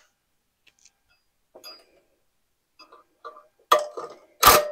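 A few light clicks and taps of tool handling, then near the end a DeWalt cordless driver runs in two short loud bursts with a steady motor whine, backing out a fastener on the Honda EU3000is generator's exhaust.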